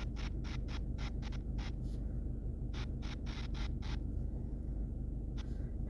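Quick, short drawing strokes scratching on a phone's touchscreen, about four a second, in two runs with a pause between and one last stroke near the end, over a low steady hum.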